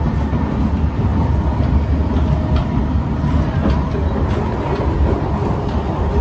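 Kawasaki C151 metro train running along the track, heard inside the passenger car as a steady low rumble, with a few light clicks.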